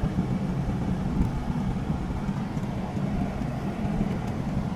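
Steady low rumble of a car driving, its engine and tyre road noise heard from inside the cabin.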